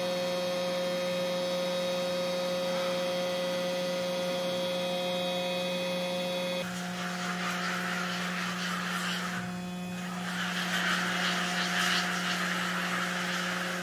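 Steady electrical hum with several high whining tones, from a powered-up electric four-wheel independent steering test vehicle. About seven seconds in, one tone drops out and a hissing, rushing noise comes in, rising and falling.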